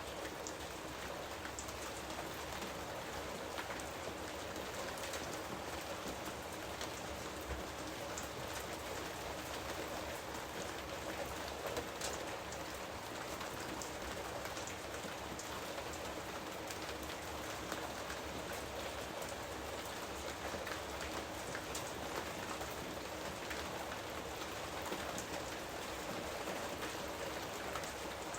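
Steady rain falling, with a dense patter of individual drops on a surface.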